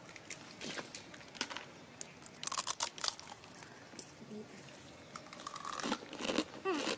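Crisp crunching of dry snack food being eaten, mixed with crinkling of a plastic snack bag: scattered cracks with a louder cluster about two and a half seconds in.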